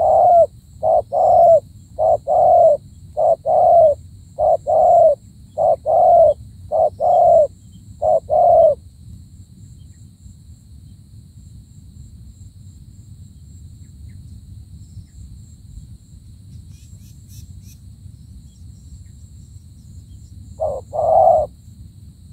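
Spotted dove (tekukur) cooing: a steady run of short paired coos for the first nine seconds or so, then it stops, with one more two-note coo near the end.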